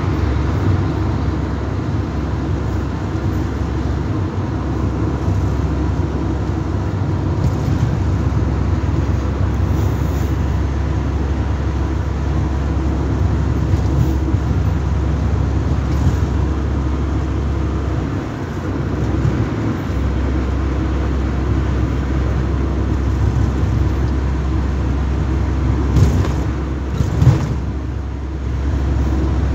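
Car cabin noise while driving at road speed: a steady engine hum and tyre and road rumble. Two brief knocks come near the end.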